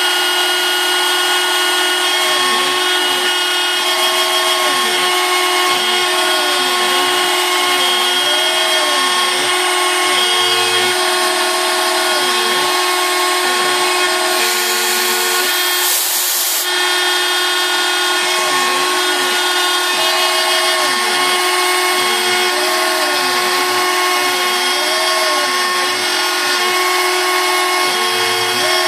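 CNC milling of a copper-clad circuit board: the spindle spins an engraving bit at a steady high-pitched whine, while the stepper motors sing in rising and falling tones as the head moves from trace to trace. A louder stretch of cutting noise lasts about two seconds midway.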